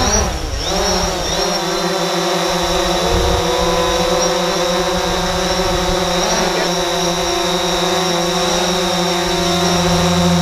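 Propellers of small quadcopter drones whining and buzzing as they are flown, with several pitches drifting and gliding as the motors speed up and slow down.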